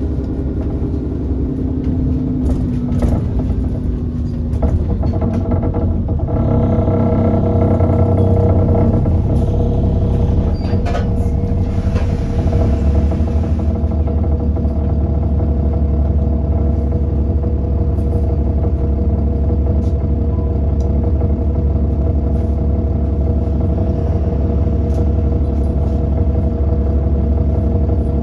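Onboard sound of an Alexander Dennis Enviro400 double-decker bus on the move: its diesel engine pulls harder after about six seconds, then runs steadily. A few sharp knocks and rattles come through in the first part, in a bus whose knocking sound is the reason it was filmed.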